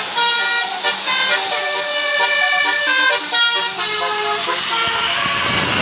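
Bus "telolet" basuri musical air horn playing a quick tune of stepped notes. Near the end the horn gives way to a loud rush of noise as the bus passes.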